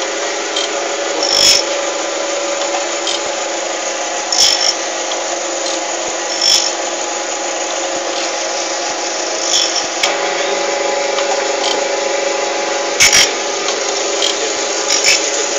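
Jones & Shipman surface grinder running with a steady mechanical hum, with a short sharp click or knock every two to three seconds.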